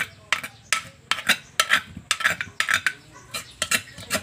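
A spoon scraping and clinking against an earthenware mortar and a china bowl, about three quick strokes a second, as thick chili paste is scooped from one into the other.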